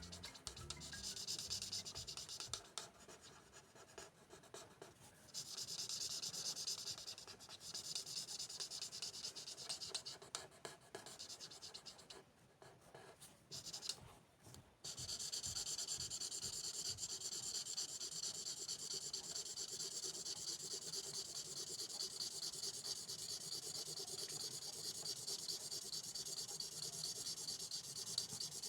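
A pen scratching across paper: several short stretches of strokes, then from about fifteen seconds in a long run of quick back-and-forth strokes.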